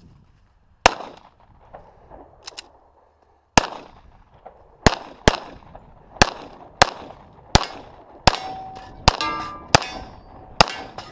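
A string of about eleven gunshots during a timed course of fire, coming faster in the second half, with steel targets ringing after several hits.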